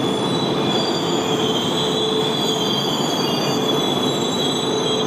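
E4 series double-deck Shinkansen pulling into the platform: steady running noise with high-pitched brake and wheel squeal as it slows to a stop.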